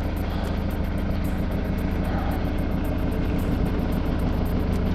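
Ford Mondeo Mk3 2.0 TDCi diesel engine running steadily near idle, with a fine even clatter. At tick-over the exhaust rattles, a rattle the owner puts down to worn exhaust rubbers and which stops with about 150 extra revs.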